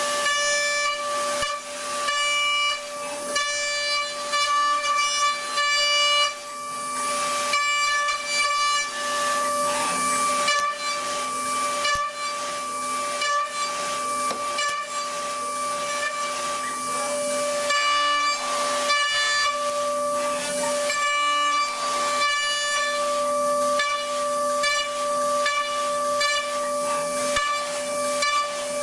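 A machine's steady high-pitched whine that has just risen in pitch and then holds one pitch, over a hiss, with a faster set of overtones that flickers on and off every second or so.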